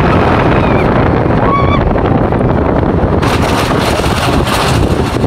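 Schwarzkopf Jet Star 3 steel roller coaster train running through its circuit: a steady loud rush of wind on the microphone over the rumble of the wheels on the steel track. A brief high squeal sounds about a second and a half in, and the hiss grows stronger from about three seconds.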